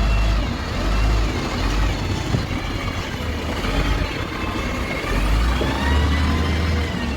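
Heavy construction machine's diesel engine running under changing load: a steady low rumble, with a whine that rises and falls in pitch every second or two.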